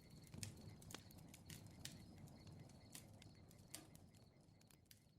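Faint crackling bonfire: irregular sharp pops and snaps over a low rumble of burning wood, fading out toward the end.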